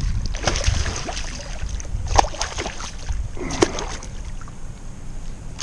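Wind rumbling on the microphone and water moving around a kayak, with scattered sharp clicks and knocks.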